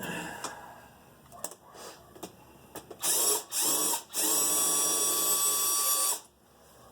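Power drill spinning a hose clamp screw loose on a carburetor boot: two short pulses, then one steady run of about two seconds that stops abruptly, each rising quickly in pitch as the motor spins up. A few light clicks of handling come before it.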